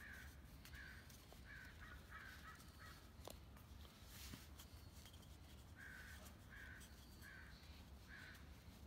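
Faint, repeated cawing of a crow: a quick run of caws about two-thirds of a second apart, a pause, then four more near the end.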